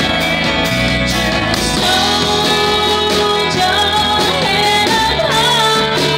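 Live band music: a woman singing over strummed acoustic guitar, electric bass and drums, with regular cymbal strokes.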